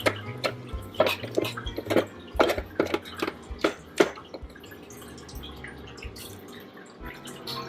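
A spatula knocking and scraping against a food processor bowl while the puree is scraped down: a run of sharp clicks and knocks, two or three a second, that turns fainter about halfway through.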